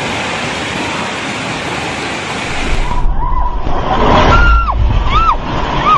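Landslide of rock and debris down a mountainside: a steady rushing noise. About three seconds in it cuts to a low rumble with people crying out in short rising-and-falling shouts.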